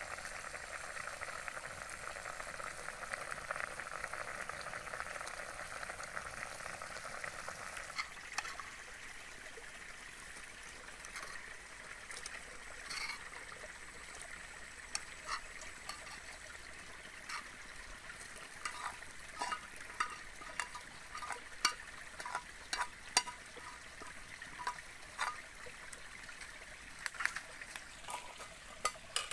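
A pot of soup boiling over a wood fire, a steady bubbling hiss. After a cut about eight seconds in, a run of short, sharp clicks and taps as chopped meat is scraped from a pan into the pot with chopsticks and a spoon.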